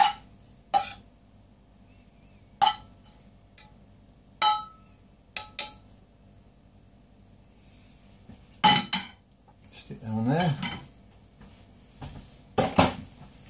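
A metal table knife scraping and tapping against a frying pan as mushrooms are pushed out of it: a series of separate sharp clinks with pauses between them, one ringing briefly. There is a louder clatter of the pan about nine seconds in and another near the end.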